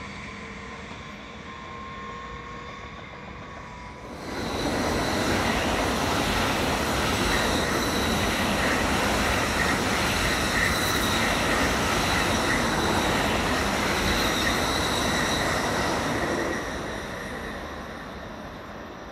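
A train running past on the station tracks: a loud rush of wheel-on-rail noise starts suddenly about four seconds in, with a steady high whine over it. It holds for about twelve seconds, then fades away near the end.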